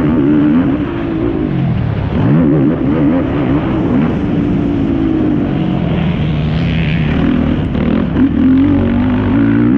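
Yamaha YFZ450R quad's single-cylinder four-stroke engine revving hard under racing throttle, its pitch repeatedly climbing and dropping as the rider accelerates and backs off.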